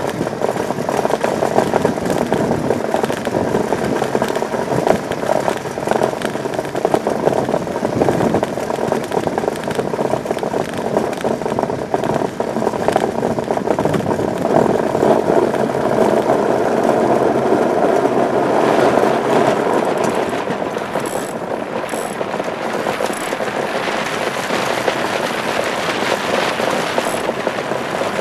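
Iceboat runner blade scraping and rumbling steadily over the ice as the boat sails, with a few faint ticks in the second half.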